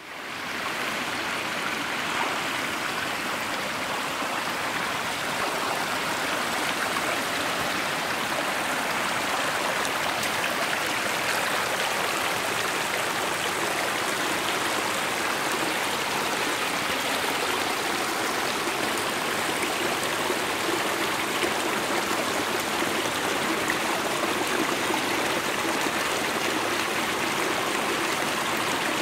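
Mountain stream rushing and splashing over rocks in small cascades, a steady rush of water that comes up within the first second and then holds even.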